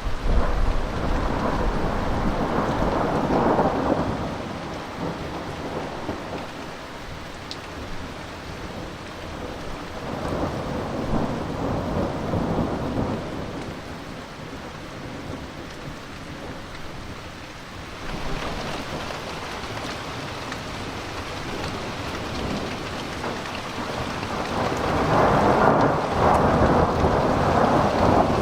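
Thunder rolling and rumbling overhead in three long swells, the loudest near the end, over the steady hiss of heavy rain.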